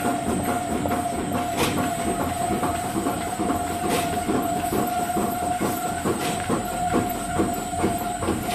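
Workshop machinery running steadily, with a constant mid-pitched whine over a fast mechanical clatter and a sharp click three times, about every two and a half seconds.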